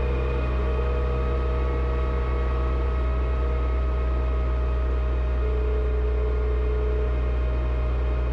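Front-loader tractor engine running steadily at a constant speed, a low even hum with no revving.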